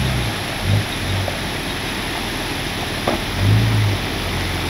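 A vehicle engine running at low speed over a steady hiss, its hum swelling briefly about three and a half seconds in.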